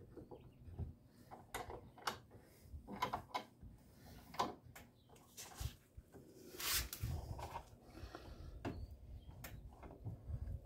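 Faint, scattered clicks, knocks and rubbing as steel C-clamps are tightened and handled on a wooden 2x4, with a louder scrape about six and a half seconds in.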